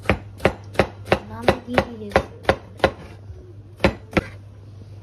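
Cleaver slicing a luffa into rounds on a plastic cutting board: nine even chops at about three a second, a pause, then two more near the end.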